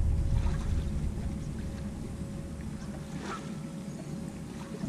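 Bass-boat ambience on the water: a low rumble of wind and lapping water that eases off, with a faint steady hum throughout. There is a brief faint rustle about three seconds in.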